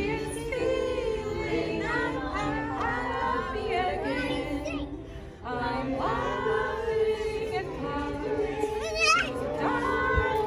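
A small choir of adult voices singing a cappella, with a short break between phrases about five seconds in. Near the end a brief, high, wavering squeal rises above the singing.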